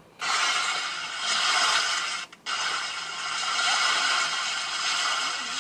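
A steady hissing noise, like static, with a brief break about two seconds in.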